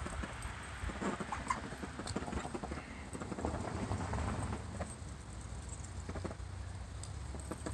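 Irregular soft footsteps and knocks on soft dirt and grass, over a steady low outdoor rumble.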